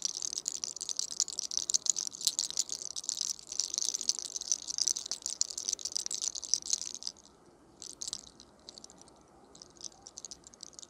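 Hair cracking: a lock of hair rolled tight between the fingers and pulled at the scalp, giving a dense run of fine, rapid crackles. The crackling thins to scattered crackles about seven seconds in and picks up again near the end.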